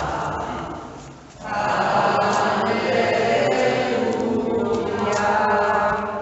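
A choir singing slow, held sacred chant. One phrase dies away about a second in, the next starts right after, and it fades out near the end.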